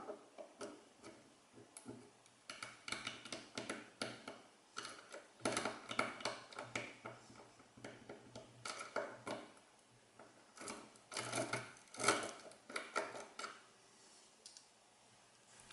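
Tubular lock pick (impressioning tool) clicking and rattling in a tubular lock as it is worked: quick small metallic ticks in irregular clusters, with short pauses between.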